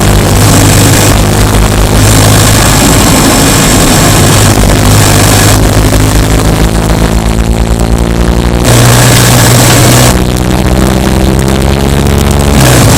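Subaru Impreza Sport's flat-four engine running loudly under way. Its pitch climbs twice and changes abruptly at the end of each climb, as the revs build and then shift.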